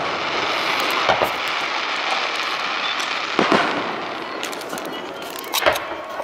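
Aerial firework shells bursting: booms about a second in, about three and a half seconds in and near the end, with a steady hiss between them.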